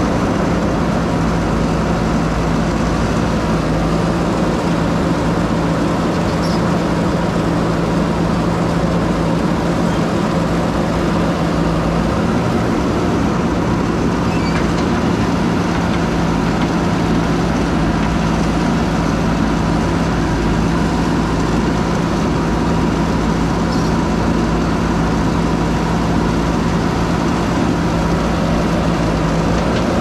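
JCB 3DX backhoe loader's diesel engine running steadily and loudly, heard close up while the backhoe digs.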